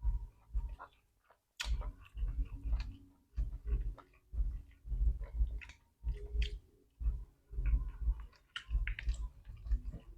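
Close-miked mukbang chewing and mouth smacking while eating rice with fried chicken and sambal, in a steady rhythm of chews with sharp wet clicks, broken by short pauses.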